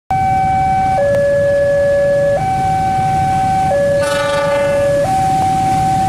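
Two-tone hi-lo siren, switching steadily between a higher and a lower note about every 1.3 seconds, over a low rumble. A brief ringing burst comes about four seconds in.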